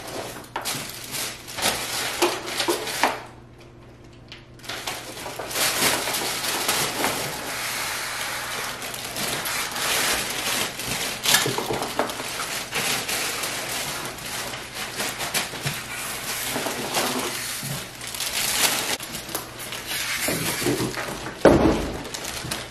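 Plastic bag crinkling and foam packing blocks scraping against cardboard as a heavy boxed printer is hauled out of its box, a long run of rustling after a brief lull about three seconds in. A thump near the end as it is set down on the table.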